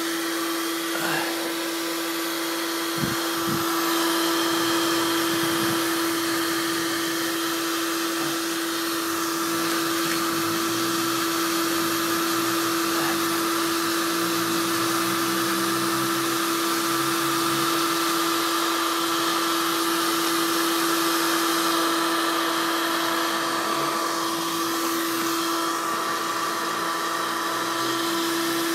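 Black & Decker KX1600 electric heat gun running steadily, its fan giving a constant hum over a rushing hiss of hot air, as it is played along faded plastic car trim.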